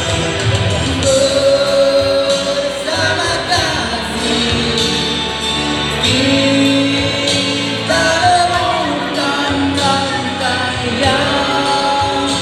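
Man singing a Malay song into a handheld microphone, with long held notes, over instrumental backing music.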